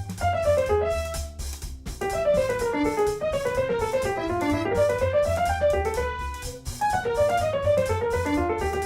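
Background music: fast piano runs sweeping up and down over a steady drum beat and bass.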